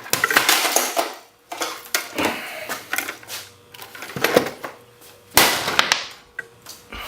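Hard plastic battery-charger case and its circuit board being hit to break them apart: several sharp hits a second or two apart, with pieces clattering and rattling.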